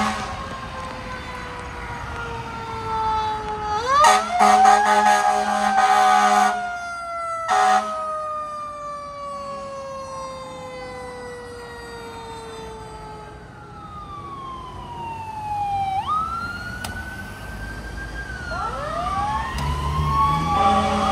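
Fire engine and rescue ambulance sirens wailing in long, slow rising and falling sweeps. There are loud horn blasts about four seconds in and again near eight seconds. Near the end a second siren joins with quick overlapping rising sweeps.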